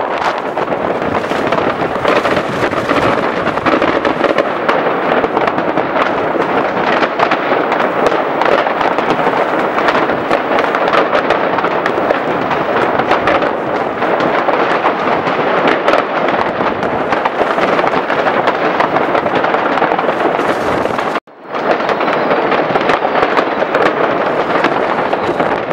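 Many fireworks and firecrackers going off at once, a dense, continuous crackle of bangs with no pause between them. The sound drops out for a split second about four seconds before the end, then the bangs carry on.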